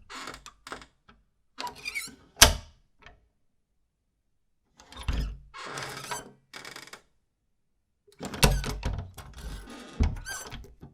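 A door bolt sliding and snapping home with sharp metal clacks, together with a wooden door creaking and squeaking, in three separate takes. The loudest clack comes about two and a half seconds in, and there are two more knocks near the end.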